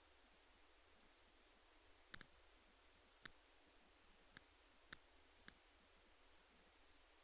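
Six short, sharp clicks spread over about three and a half seconds, the first two close together, against a faint background hiss.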